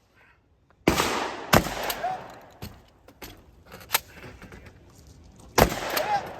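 Shotgun fired three times: two shots under a second apart about a second in, then a third near the end, with lighter clicks and knocks between them.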